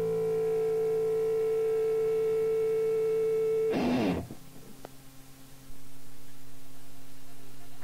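A held electric guitar chord with effects rings at a steady level, then cuts off about four seconds in with a short burst of noise. After a brief dip in level, a steady low drone carries on, as the end of one rock track gives way to the next.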